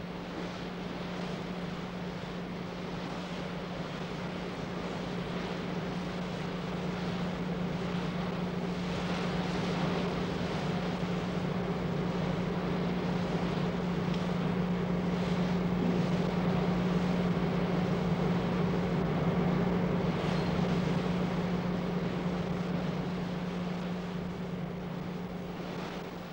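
A steady engine drone, a low hum over a rushing noise, swelling somewhat toward the middle and easing off near the end.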